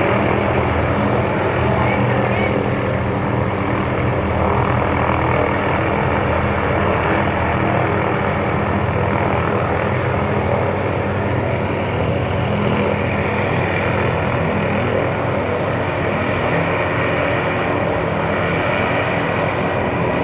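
Helicopter's engine and rotor running, a loud steady sound that keeps on without a break.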